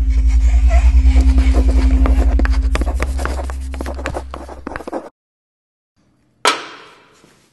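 Sound design for a logo animation: a deep, fluttering rumble with a steady held tone and a flurry of scratchy clicks over it, fading away about five seconds in. After a short silence comes a single sharp hit that dies away.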